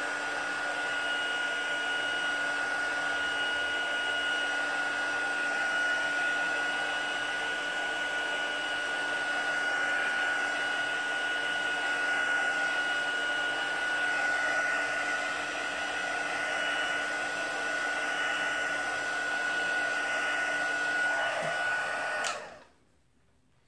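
Handheld craft heat gun running steadily, a fan blowing air with a steady whine on top, heat-setting chalk paste. It switches off abruptly shortly before the end.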